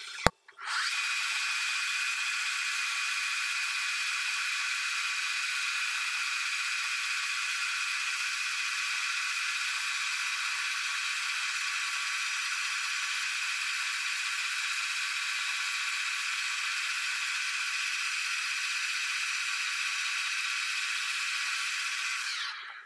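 Metal lathe taking a turning cut along a metal shaft held between centres: a steady cutting hiss with a thin high whine running through it, sped up three times. It starts under a second in and cuts off just before the end.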